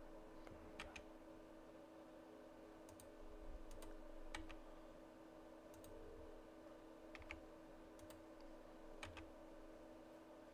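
Faint, irregularly spaced clicks of a computer mouse and keyboard keys, about ten in all, over a steady low electrical hum.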